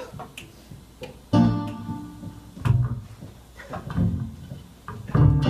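Acoustic guitar opening a song: a loud chord about a second in, left to ring and die away, then a few more spaced chords, and steadier, fuller playing starting near the end.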